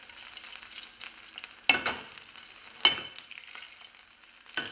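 Butter and oil heating in a frying pan, sizzling with a steady hiss, with three sharp pops: one before two seconds in, one a second later and one near the end.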